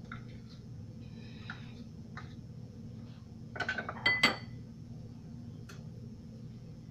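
Hard kitchen containers clinking against each other on the counter as one is picked up: a quick rattle of small clicks about three and a half seconds in, then two sharp clinks with a short ring.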